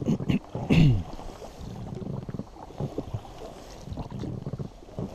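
Inflatable boat under way on a small river: a few creaking squeaks that slide down in pitch in the first second, then quieter knocks and water noise against the hull.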